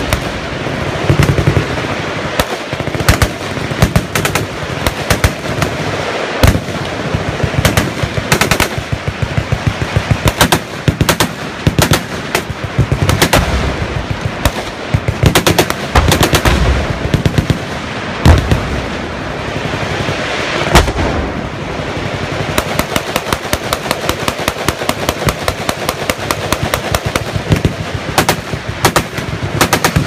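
Many machine guns firing at once in long, overlapping bursts of automatic fire, with a few louder single bangs standing out above the rattle.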